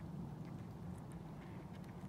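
Steady low outdoor rumble with no clear bird calls, only a few faint high ticks.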